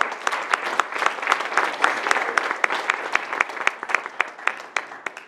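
Audience and panelists applauding, dense clapping that thins out and stops near the end.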